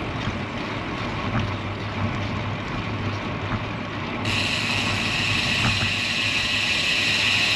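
Steady wind and road noise while riding a road bicycle. About four seconds in, a steady high hiss sets in abruptly and keeps on.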